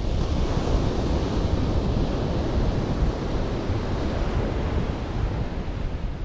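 Sea surf breaking and washing up the beach, the hiss swelling near the start and dying away toward the end, over a low rumble of wind on the microphone.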